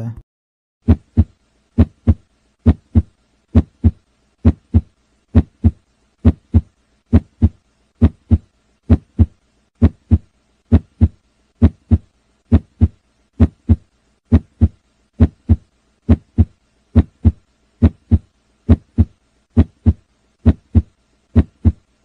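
Human heartbeat heard through a stethoscope: steady, regular lub-dub pairs of low thumps, about 70 beats a minute.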